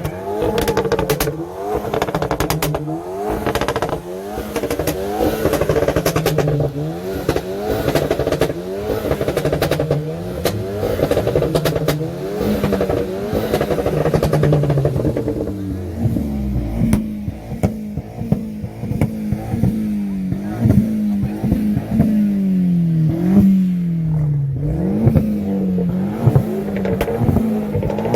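Volkswagen Golf GTI's exhaust as the engine is revved again and again, the pitch rising and falling about once a second, with sharp pops and crackles between the revs. In the second half the engine settles lower and steadier, with smaller blips and fewer pops.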